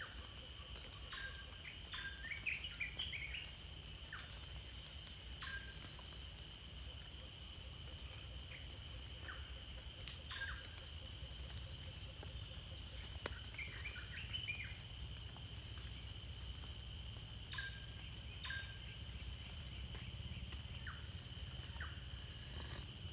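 Tropical forest ambience: a steady high insect drone with birds chirping now and then. Over it a thin high whistle, each about a second and a half long, comes back four times at an even pace about six seconds apart, and a low steady rumble sits underneath.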